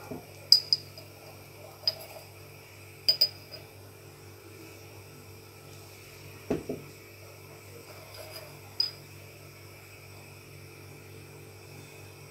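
Kitchenware handled while seasoning is added to the pot: a few sharp glassy clinks of dishes and utensils, and a duller knock about six and a half seconds in, over a low steady hum.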